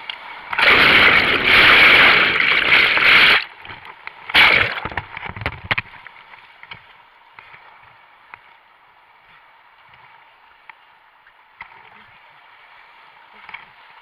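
Whitewater rapids rushing around a kayak, with loud water breaking over the camera from about half a second to three and a half seconds in and again briefly at about four seconds, then a steadier, quieter rush of the river.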